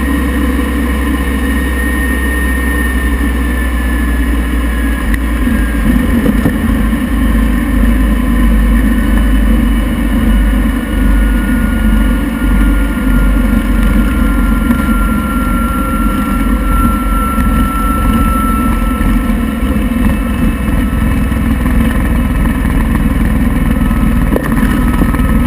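Jet engine running steadily with a deep rumble and a high whine that glides slowly down in pitch.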